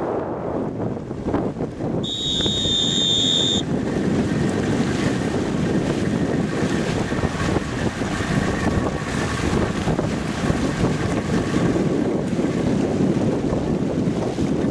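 Wind buffeting the microphone over the rush of water from a boat under way at sea. About two seconds in, a steady high-pitched tone sounds for about a second and a half.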